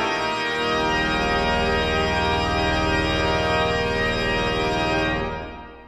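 Pipe organ holding a loud, full closing chord, with a deep bass note filling in just after the start. The chord is released about five seconds in and dies away in the church's reverberation.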